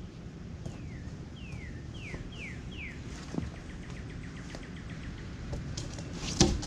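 A songbird singing a series of slurred whistles that fall in pitch, running on into a quick trill of short repeated notes, over a steady low background hum. Near the end comes a single sharp thump, the loudest sound.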